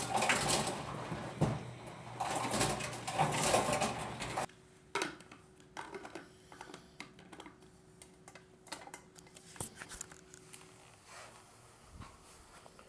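Ice vending machine running and dropping ice into a cup, a dense clattering rattle that stops suddenly about four and a half seconds in. After that only a faint steady machine hum and a few small clicks.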